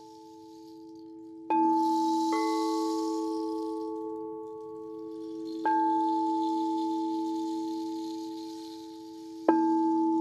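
Singing bowls of different pitches struck four times: about a second and a half in, again shortly after, near the middle, and near the end. Each strike starts suddenly and leaves several clear tones ringing on and slowly fading, so the bowls overlap and sustain between strikes.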